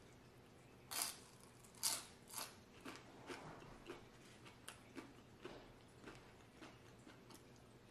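Crunching as a tortilla chip with guacamole is chewed: a few sharp crunches about one and two seconds in, then a run of softer crackles as the chewing goes on.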